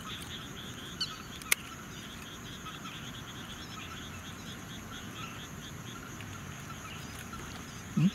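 A steady night chorus of frogs calling in quick, repeated short notes. A single sharp click sounds about a second and a half in, and a short, loud, low thud comes just before the end.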